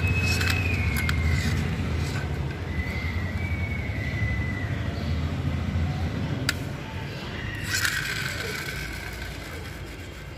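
Plastic wheels of a toy dump truck rolling over a rough stone floor, a low rumble that fades out over the last few seconds. A few thin high squeaks and a couple of sharp clicks come through on top.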